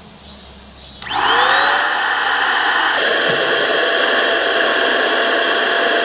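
A small electric fan-driven motor spins up about a second in, its whine rising as it comes up to speed, then runs steadily.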